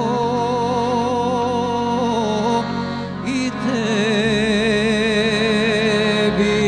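Serbian folk music recording: a melody line with wide vibrato over a steady accompaniment, easing off briefly a little past the middle before coming back in.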